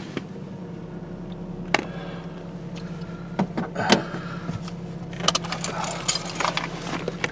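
Steady low hum of a car idling, heard from inside the cabin. A few sharp clicks sound at intervals, then a stretch of jangling, clattery rattling from about five seconds in.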